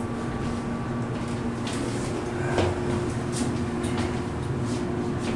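Montgomery hydraulic elevator cab riding, with a steady low hum and a few light clicks and rattles from the cab.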